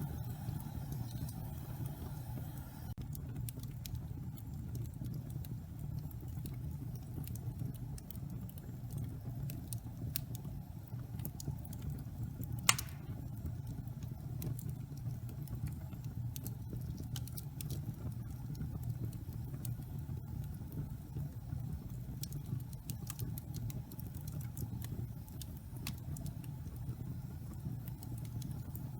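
Wood fire burning in a fireplace: a steady low rumble with scattered small crackles, and one loud pop near the middle.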